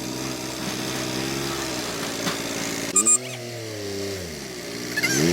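An engine running steadily. About three seconds in there is a short sharp click, and then the engine's pitch drops and comes back up near the end.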